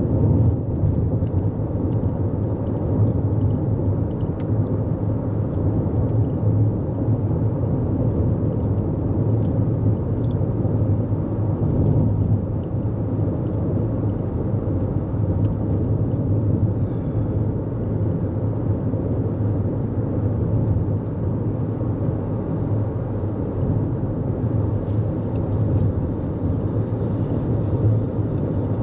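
Steady road noise from a 2024 Toyota Corolla Cross cruising at highway speed: a constant low rumble of tyres on pavement and wind, without changes or distinct events.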